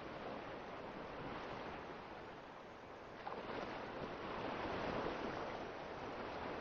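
A steady rushing noise, like surf or wind, that swells about three seconds in and eases near the end.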